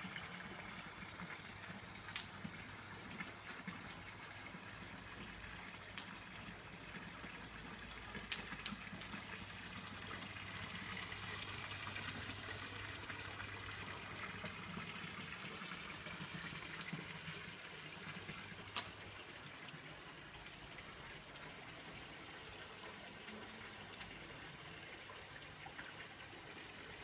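Water from a garden water-blade feature trickling and splashing steadily into its pool, with a few sharp clicks.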